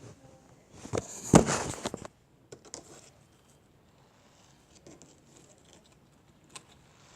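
Hands kneading and squishing glitter putty: a loud crackling burst about a second in, then faint scattered clicks.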